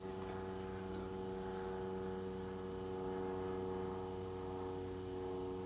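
A steady low hum with a stack of even overtones, holding one pitch throughout, with a few faint clicks in the first second.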